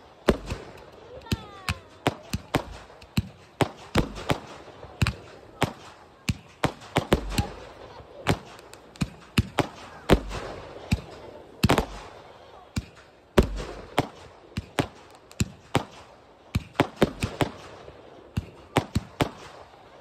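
Fireworks display: an irregular string of sharp launch and burst reports, one to three a second, from barrages firing comets and star shells, with several deeper thumps among them.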